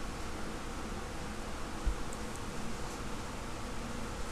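Steady background hiss with a faint even hum, and one soft low thump about two seconds in.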